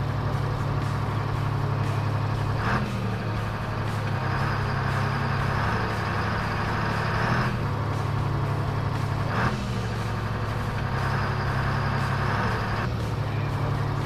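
Truck engine sound effect running steadily, with a brief hiss about three seconds in and again near the ten-second mark. The same pattern repeats about every seven seconds, as a looped effect.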